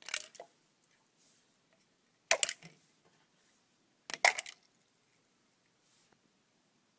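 Marbles dropped one at a time into a water-filled plastic graduated cylinder, each landing with a quick splash and clinks, three times about two seconds apart.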